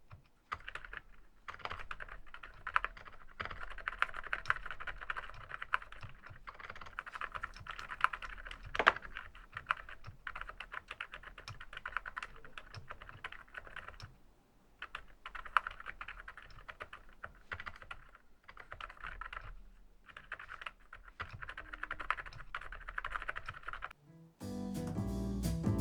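Typing on the SPM AL87A full-aluminium mechanical keyboard: rapid keystrokes in runs broken by short pauses. About 24 seconds in, jazzy piano music starts.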